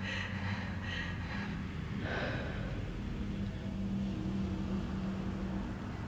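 A person's breath sounds, a few short gasping breaths in the first couple of seconds, over a low steady hum.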